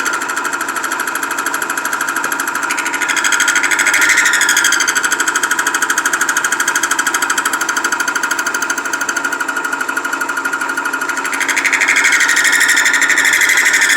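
High-speed steel cutter cutting a keyway into a steel lead screw shaft, a fast steady chatter of the cutting teeth. It grows louder about four seconds in and again near the end.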